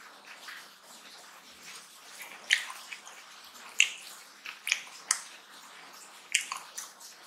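Close-up wet eating sounds: sharp, irregular lip smacks and clicks, about six or seven, from chewing rice and mutton curry, with the soft squish of fingers mixing rice on a steel plate.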